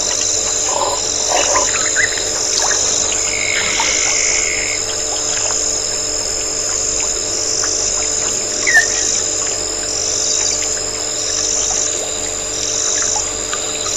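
Frog and insect chorus at a waterhole: a high trill switching on and off about once a second over a steady background chorus, a held call of about a second near four seconds in, and one short loud chirp about nine seconds in.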